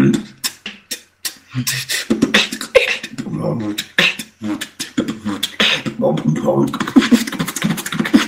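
Beatboxing over a voice-chat connection: a person making drum sounds with the mouth, sharp snare-like clicks and hissing hi-hats over deep bass hums in a steady rhythm. The beat breaks off for a moment about a second in.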